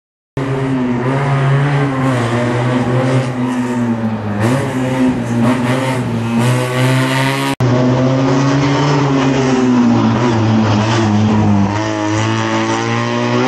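Small racing car engines revving hard, the pitch rising and falling as the cars accelerate and slow through tight turns. The sound breaks off for an instant about seven and a half seconds in, then carries on.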